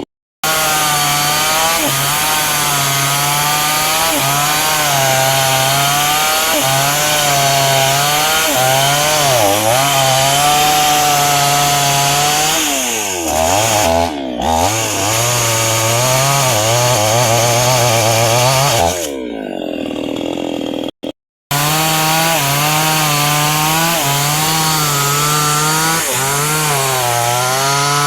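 Chainsaw running at high revs, cutting into a hardwood trunk, its note wavering as the chain bites. About halfway the revs sag and pick up again. Around two-thirds through the note falls away, breaks off for a moment, and comes back at full speed.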